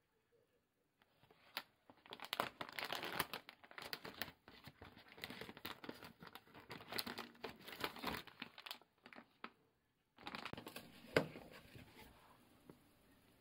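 Plastic snack pouch crinkling and rustling as it is handled and a sachet of freeze-dried strawberry drink mix is pulled out of it. The crinkling starts about a second in, stops briefly near ten seconds, then comes back and trails off near the end.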